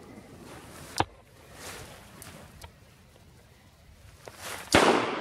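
Two shotgun shots about four seconds apart: a sharp crack about a second in, then a louder shot near the end that rings out briefly. These are follow-up shots to finish a drake.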